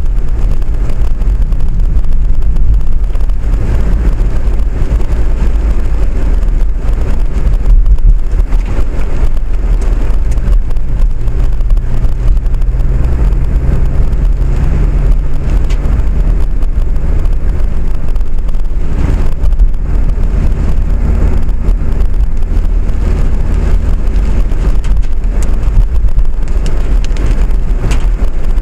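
Tram running, a loud, steady low rumble, with a faint motor hum that comes and goes partway through.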